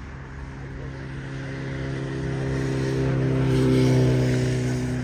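Airbus A321-211's twin CFM56 turbofan engines at takeoff thrust: a droning hum made of several steady tones. It swells to its loudest about four seconds in as the airliner lifts off and climbs, then starts to fade.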